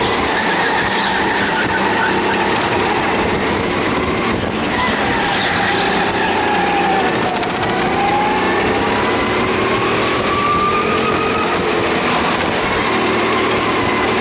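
Go-kart engine heard close up from onboard the kart, its pitch rising and falling as the driver accelerates and lifts through the corners.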